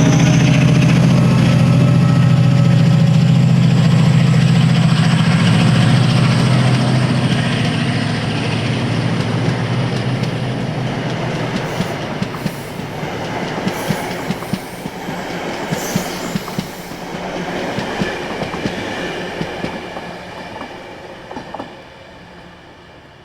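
A Class 68 diesel locomotive with Mk3 coaches passing. A loud, steady engine drone for the first several seconds gives way to wheels clacking over rail joints, and the train fades away near the end.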